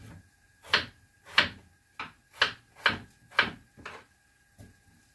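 A kitchen knife chopping on a cutting board: about eight sharp strokes, a little under half a second apart, the last one fainter.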